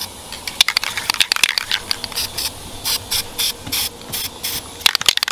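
Aerosol spray paint can sprayed through a stencil in repeated short hissing bursts, with a few sharp clicks between them.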